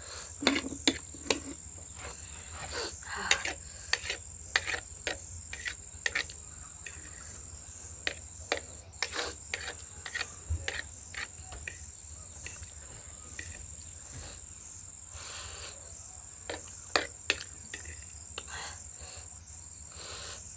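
Close-up eating sounds of a noodle mukbang: irregular clicks of utensils against a bowl, slurps and chewing, many short sharp sounds scattered through. Behind them, a steady high chirring of crickets.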